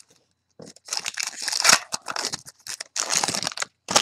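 Trading-card pack wrappers being torn open and crinkled. The ripping and rustling comes in stretches, a long one early on and a shorter one about three seconds in, with a short sharp rip near the end.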